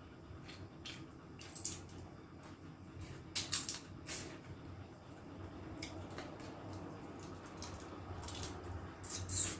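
Close-up wet eating sounds: chewing and lip smacking in a run of short clicks, loudest about three and a half seconds in and again near the end.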